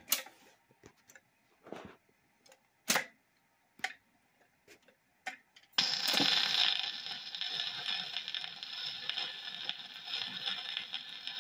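Record changer cycling a 45 rpm single: a few separate mechanical clicks and clunks as the record drops onto the platter and the tonearm swings over. About six seconds in, the stylus sets down and a steady hiss with crackle from the lead-in groove begins.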